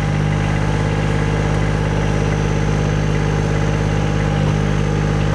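Weedoo aquatic weed-harvester workboat's engine idling steadily, a constant low hum with no change in speed.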